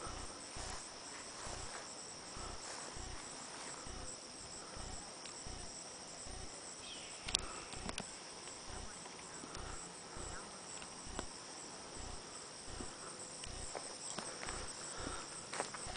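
Steady high-pitched chorus of insects singing in the summer grass, unbroken throughout, with a couple of sharp clicks about halfway through.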